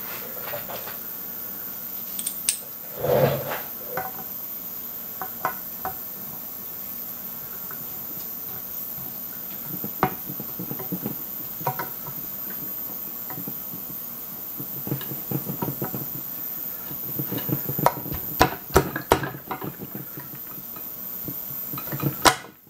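Pliers and small metal parts clinking and scraping against the oil pump in a Saab B234 engine's timing cover: scattered light metal clicks, coming thicker and faster in the last few seconds.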